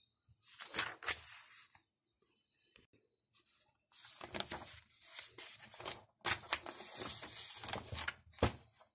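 Paper rustling and scraping with handling noise, in three short spells, with a sharp click near the end.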